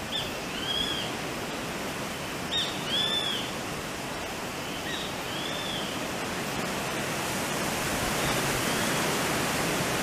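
Grey-faced buzzard calling a 'pik-kwee' four times: each call is a short sharp note followed by a rising-and-falling whistle, the last one fainter. Behind it runs the steady rush of wind and rough surf.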